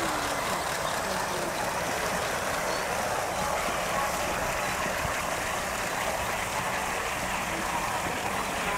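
Steady background hubbub, an even wash of noise with faint, indistinct voices of people in it.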